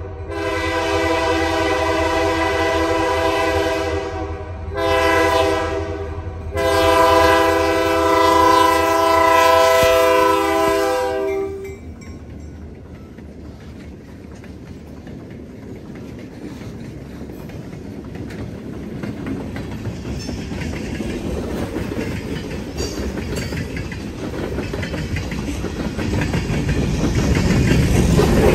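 Freight train's diesel locomotive horn blowing for a grade crossing: a long blast, a shorter one and a final long blast, the end of the long-long-short-long crossing signal, cutting off about twelve seconds in. Then the Lake State Railway locomotives and a long string of covered hopper cars roll past with a steady wheel rumble and clickety-clack on the rails, getting louder near the end.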